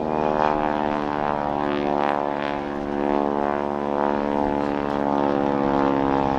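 Boeing Stearman biplane's radial engine and propeller running loud and steady, holding an even pitch.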